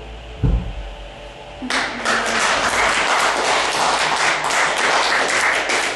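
The last sustained tones of the music die away, a single low thump sounds about half a second in, and then an audience breaks into applause from just under two seconds in.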